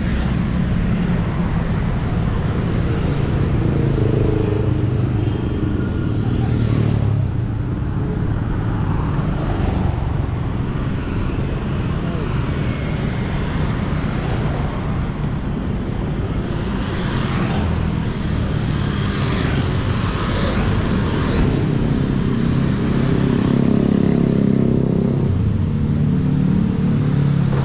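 An engine running steadily and loudly close by, a continuous low drone with no pauses.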